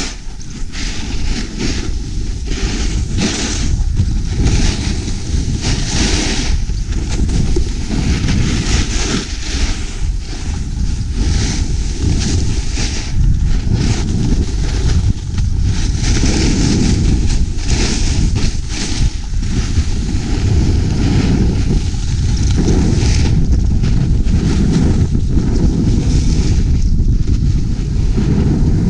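Heavy wind noise buffeting an action camera's microphone while skiing downhill, with skis hissing over packed snow in swells every second or two as the turns come and go.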